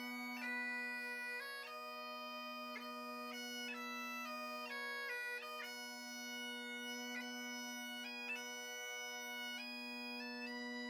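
Bagpipes playing a melody over a steady drone, the chanter stepping from note to note about once or twice a second.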